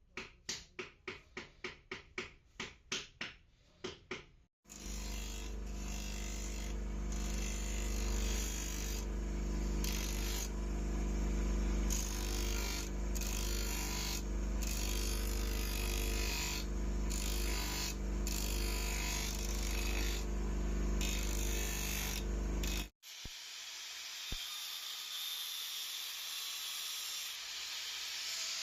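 Quick, even strokes at about three a second for the first four seconds, then an electric power tool running steadily at constant speed in kukri blade-restoration work, which cuts off suddenly about twenty-three seconds in; a steady hiss follows.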